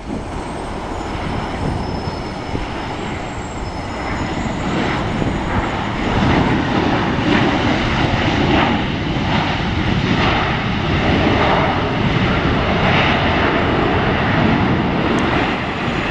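Boeing 737-800's CFM56 jet engines as the airliner touches down and rolls out: a steady jet rumble that grows louder about six seconds in and eases off near the end.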